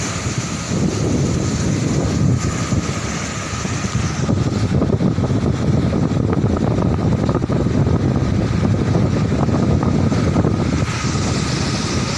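Big surf breaking and washing up the beach, a steady rushing roar, with wind buffeting the microphone; the roar grows a little louder about four seconds in.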